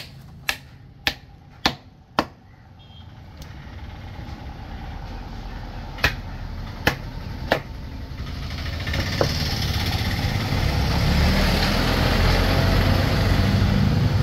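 Sharp wooden knocks of a mallet striking the back of a fish knife to chop through a fish on a wooden table: five about half a second apart, then three more a few seconds later. From about eight seconds in, a motor vehicle engine grows louder and becomes the loudest sound.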